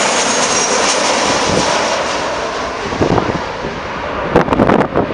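Jet noise from a landing Boeing 737-700's CFM56 engines: a loud, steady rush with a faint high whine that eases off after about two seconds. Near the end, wind buffets the microphone in sharp gusts.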